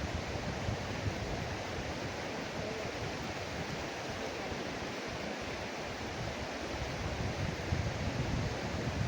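Steady rushing of a fast-flowing river running high after rain, with wind buffeting the microphone in uneven low gusts.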